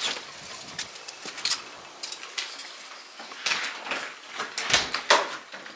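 A string of irregular light clicks, taps and rustles from objects being handled, with a few sharper knocks about three and a half seconds in and near the end.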